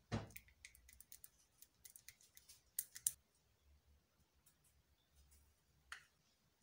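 Light clicks and taps of a metal fork and spice containers against a plate as spices are added to seasoned flour: a knock right at the start, a quick run of small clicks over the next three seconds with two sharper ones near the end of that run, and one more tap near six seconds.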